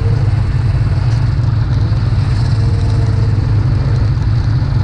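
Snowmobile engine idling steadily at close range.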